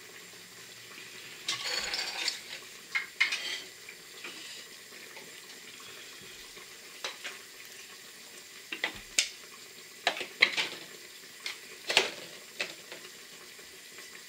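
Kitchen worktop handling: a rustle about two seconds in, then scattered sharp clicks and knocks as the plastic bowl, blade and lid of a small mini chopper are set out on a stone counter.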